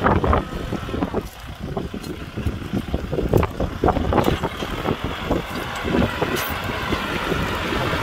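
Kubota tractor's diesel engine running while plowing, with irregular rattling and wind buffeting the microphone.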